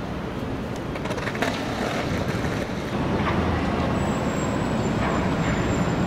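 City street traffic: a steady low rumble of passing vehicles, with a few light clicks about a second in and a thin high-pitched whine over the last two seconds.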